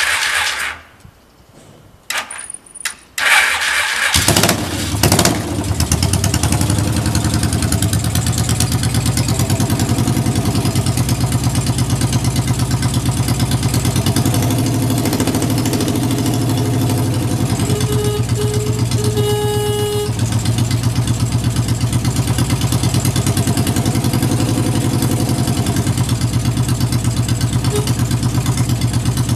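1973 Yamaha TX650's air-cooled parallel-twin engine started on the electric starter, catching about four seconds in and then idling steadily and evenly. Near twenty seconds in a short beeping tone sounds twice and then once for longer.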